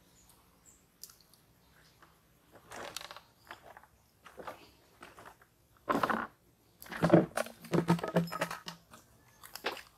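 Footsteps crunching and rustling through dry leaves, twigs and bamboo litter, in irregular bursts that grow louder and closer together in the second half.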